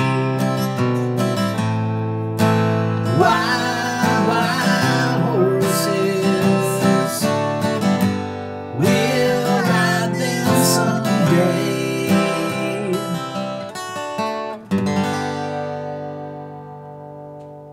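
Steel-string acoustic guitar strumming and picking chords, with a man's voice singing along in places. A last chord is struck about fifteen seconds in and left ringing out, fading away.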